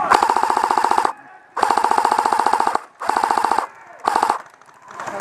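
Airsoft electric rifle firing on full auto in four bursts of rapid, even clicking with a steady whine under them, the last burst short.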